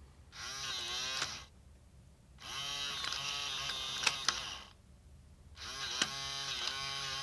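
Electronic deadbolt's small motor driving the bolt, in three runs of one to two seconds each separated by pauses, a whine that bends in pitch with sharp clicks as the bolt stops: the lock automatically working out which way to throw its latch.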